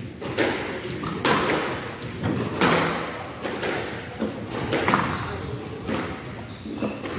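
Squash rally: the ball is struck by rackets and cracks off the court walls, about eight sharp hits at irregular intervals of roughly a second, each ringing on in the glass-walled court.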